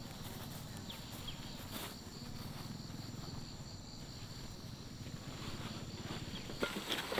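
Insects, likely crickets, trilling steadily in a high, pulsing chorus over a low background rumble. A few soft clicks and knocks come near the end.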